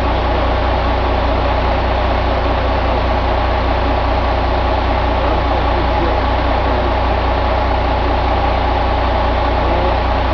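2003 Caterpillar C12 inline-six diesel engine running steadily at an unchanging speed.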